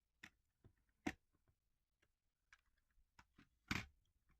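Model cars handled and set down on a table: a few scattered faint clicks and knocks of plastic, the loudest about a second in and another near the end.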